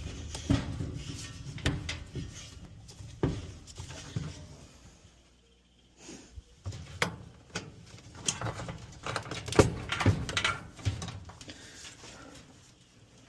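Irregular knocks, clicks and rattles of dryer parts and tools being handled while a new blower fan assembly is fitted, with a short pause about five seconds in.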